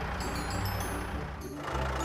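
Background music with held low bass notes; the bass moves to a new note about one and a half seconds in.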